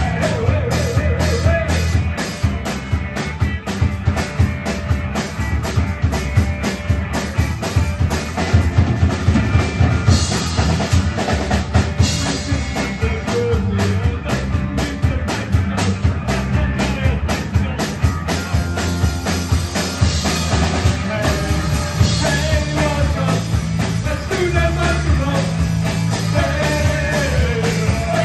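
Rock band playing live, with a drum kit keeping a steady beat under bass and guitars.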